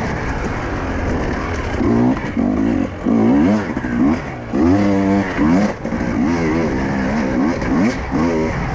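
Husqvarna enduro motorcycle engine revving hard and easing off over and over as the rider works the throttle and gears on a dirt trail, the pitch rising and falling every second or so.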